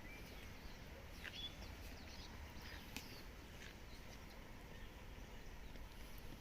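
Faint, scattered short bird chirps over a low steady rumble.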